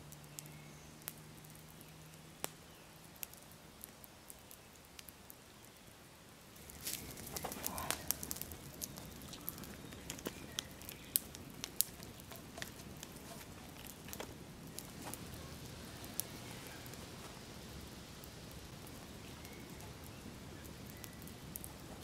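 Campfire wood crackling with scattered pops. From about seven seconds in, louder rustling and knocks join it as two logs are handled and lashed together with twine.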